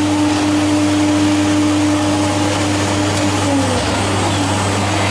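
Woodmaster CNC router milling a solid-wood door panel, with the spindle cutting and a steady hiss and hum from the dust extraction. The spindle's steady whine falls in pitch about three and a half seconds in, as the cutter comes out of the wood.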